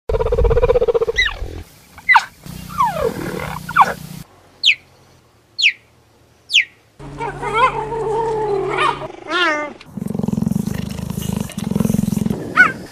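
Cheetah calls in several spliced stretches: pitched yowling calls, three short high chirps about a second apart that fall sharply in pitch, and a quick warbling trill.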